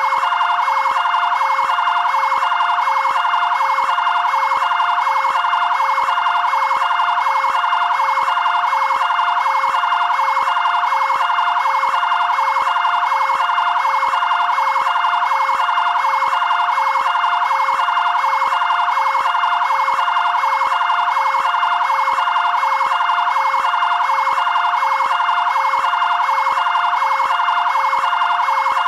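Fire brigade two-tone (bitonal) siren, alternating steadily and loudly between a high and a low tone in an unbroken repeating cycle.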